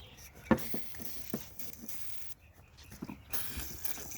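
A few light clicks and knocks of metal carburetor parts and hand tools being handled on a workbench, the sharpest about half a second in.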